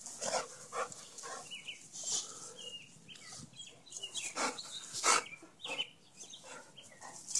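Short, high bird chirps come and go over soft scuffling and rustling as a boxer dog plays in the grass. Two sharper knocks stand out about four and a half and five seconds in.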